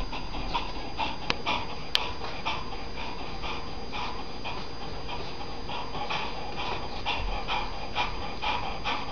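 A bull terrier panting quickly, about two breaths a second, with a rubber toy bone clenched in its mouth.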